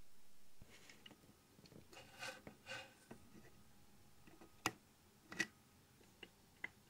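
Faint handling sounds of a resistor lead being set on a metal turret terminal with a wooden clamp: light scraping and rustling, then a few sharp single clicks in the second half.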